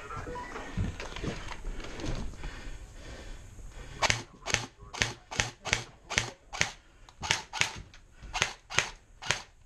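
Airsoft gun firing a steady string of single shots, about three a second, starting about four seconds in. Before the shots, only faint rustling of movement.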